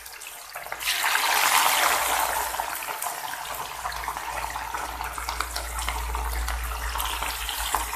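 Marinated fish pieces deep-frying in hot oil, a busy steady sizzle. It grows suddenly loud about a second in as another piece goes into the oil, then eases back to a steady sizzle.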